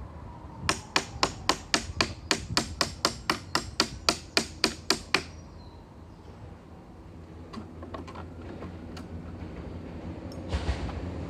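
A hammer striking in a fast, even run of about twenty sharp blows, four or five a second, while a wooden pallet is being knocked apart; after a pause with a few faint taps, a louder rough noise starts near the end.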